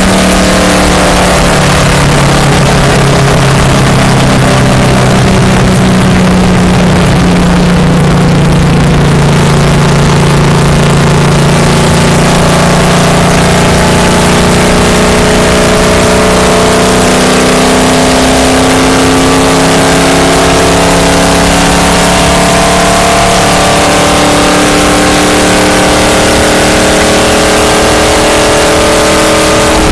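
Stock car's V8 engine held at high revs at racing speed, heard from inside the car over heavy wind and road rush. The engine pitch stays nearly steady and creeps slowly upward in the second half.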